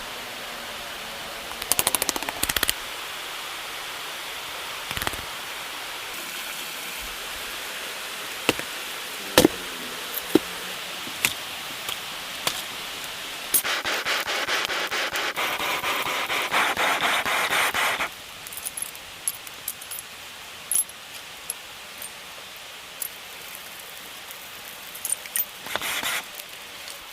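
Irregular sharp knocks and clicks over a steady hiss, with a few seconds of fast, dense rattling and scraping about halfway through. After the scraping the hiss drops and only scattered clicks are left.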